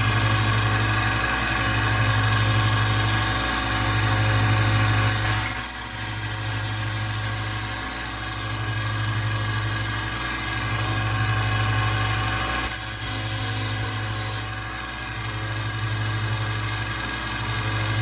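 A 1x30 Rikon belt sander running with a 240-grit belt while a knife edge is ground freehand on it to raise a burr. It runs steadily with a pulsing low hum, and the grinding hiss rises twice, about five and about thirteen seconds in.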